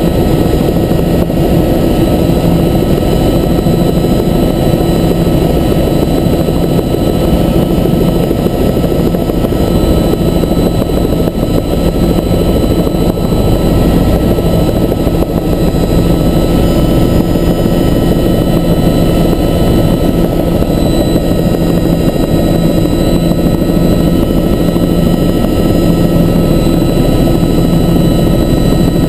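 Helicopter in steady cruise flight: loud, unchanging rotor and engine noise, a deep rumble with a few steady whining tones held over it.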